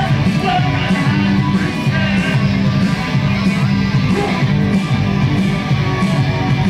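Live band playing a song, with guitar to the fore over a strong, steady bass line.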